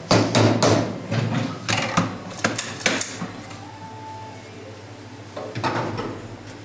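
Clatter of metal parts being handled at an espresso machine: a quick run of sharp clicks and knocks over the first three seconds, a short faint tone about four seconds in, and a few more knocks near the end.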